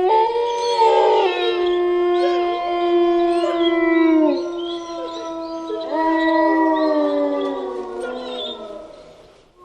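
A pack of wolves howling in chorus: several long howls at different pitches overlap, some held steady and some sliding down. New howls rise in about six seconds in, and the chorus fades out near the end.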